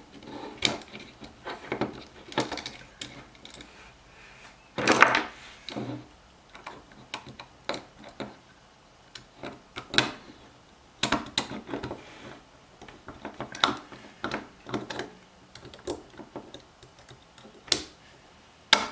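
Small metal parts of a pressure switch being fitted together by hand: irregular clicks, clinks and light knocks, with a few louder knocks spread through.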